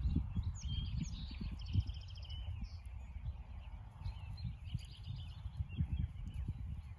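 Wild songbirds singing short, high trills twice, over a low, irregular rumbling.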